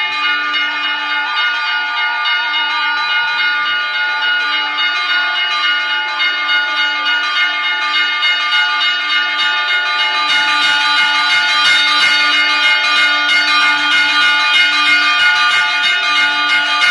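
Church bells ringing continuously, many overlapping tones sustained under repeated strikes; the ringing grows denser and louder about ten seconds in.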